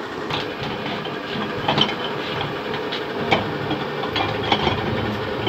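A steady machine hum, with a few sharp metal clinks and knocks as thick bee-feed paste is scraped off a mixer's beater with a metal tool and a large metal tub is handled.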